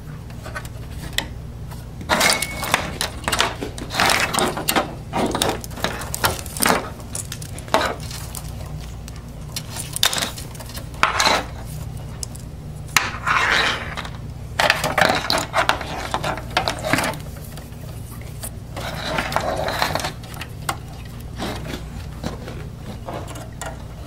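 SATA and power cables being handled and their connectors pushed onto hard drives inside a desktop computer case: irregular plastic clicks, scrapes and rustling of wiring against the metal chassis, starting about two seconds in, over a steady low hum.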